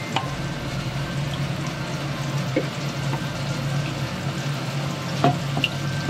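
Chicken wings deep-frying in a wok of sunflower oil: a steady sizzle of bubbling oil, with a low steady hum underneath and a few light clicks.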